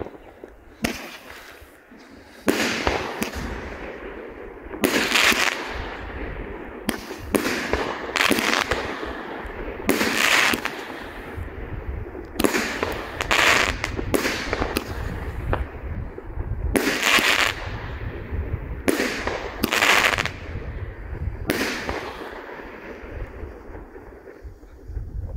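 Pyromax Impulse 19-shot 30 mm firework battery firing: a long string of sharp bangs, many in quick pairs, about one every second. The shots stop a few seconds before the end.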